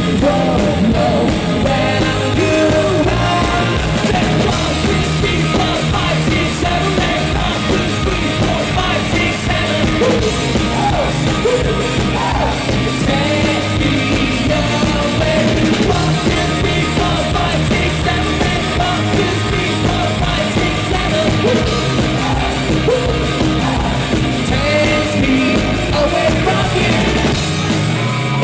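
Live rock band playing a song with a sung lead vocal, loud and continuous.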